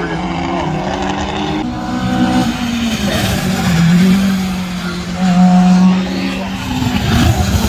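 Rally car engine running hard as the car passes close by on a wet track, its engine note shifting up and down in pitch several times, with tyre and spray noise from the wet tarmac.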